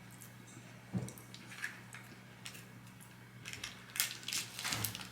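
Close handling of fast-food packaging and food: scattered crinkles and sharp clicks, with a soft thump about a second in and a quick run of clicks near the end, over a steady low hum.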